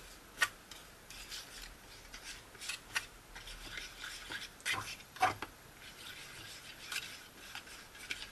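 Small plastic fork stirring a thick candy noodle paste in a plastic tray, scraping and tapping against the tray in quick, irregular strokes.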